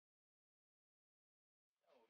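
Silence: no sound at all, the audio drops out completely.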